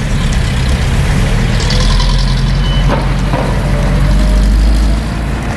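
Heavy road vehicle, such as a truck, running close by with a deep steady engine rumble that eases off about five seconds in.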